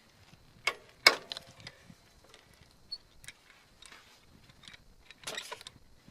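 Metal hand tools clinking and clanking against the motorcycle's rear suspension hardware: two sharp clanks about a second in, scattered lighter ticks, then a short cluster of clinks near the end.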